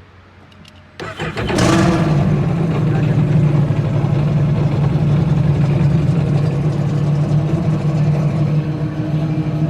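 Sea-Doo Spark's three-cylinder four-stroke engine starting about a second in, then running steadily. Cylinder number 1 is misfiring because its ignition coil gets no power.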